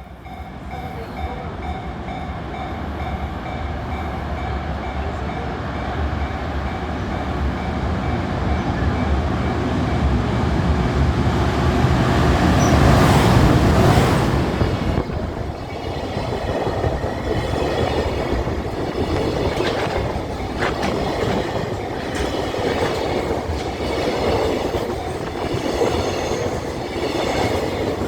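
Train passing over a level crossing, the crossing's warning bell sounding in regular pulses. The train's noise builds to its loudest about halfway through, then stays loud and steady as the cars go by.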